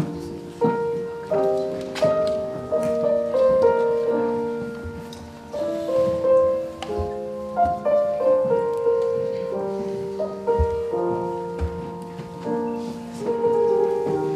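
Piano music: a slow run of struck notes and chords, each left to ring and fade.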